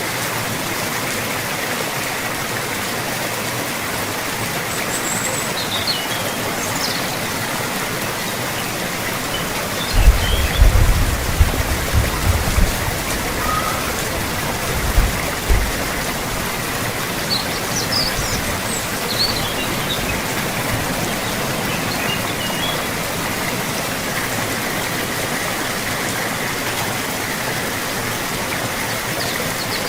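Steady rain falling, a dense even hiss. From about ten to sixteen seconds in, a run of low rumbling thumps is louder than the rain. A few short high bird chirps come through twice.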